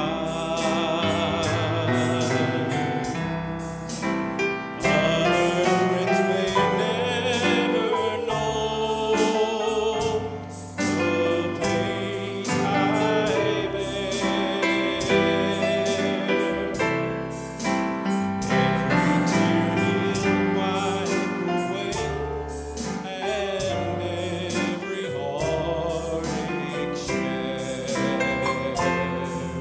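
A church choir singing a gospel hymn, led by a man singing into a microphone, over instrumental accompaniment.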